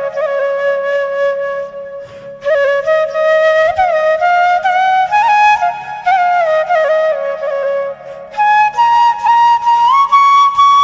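A flute playing a slow, lilting melody in phrases, sliding between notes, with short pauses about two seconds in and near eight seconds.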